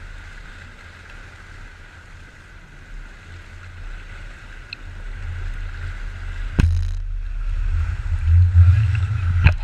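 Charter fishing boat running on the water: a steady low rumble with a steady whine above it, getting louder in the second half, with a sharp knock about six and a half seconds in and another near the end.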